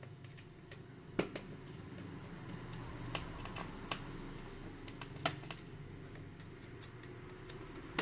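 Laptop being taken apart with hand tools: scattered sharp clicks and light taps of tools and parts against the laptop's chassis, about half a dozen clear ones at irregular intervals.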